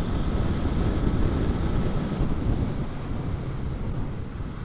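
Steady wind rush and low road rumble from riding a motorbike at speed, a deep even noise that eases slightly toward the end.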